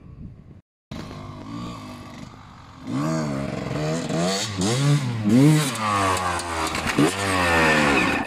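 Gas Gas EC 300 two-stroke enduro motorcycle riding off-road, revved in repeated surges with its pitch rising and falling. It cuts out briefly under a second in, runs fainter, then gets much louder about three seconds in as it comes closer.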